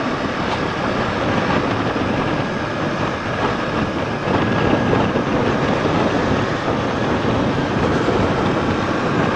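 Steady rush of wind over the rider's microphone, with the sport motorcycle's engine and tyre noise underneath as it rides along at speed.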